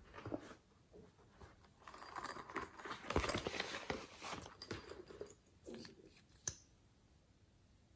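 Faint handling noise: rustling and rubbing as a red smiley-face squishy is picked up and moved close, loudest about three seconds in, then a few clicks and taps as a small plastic piping tube is handled.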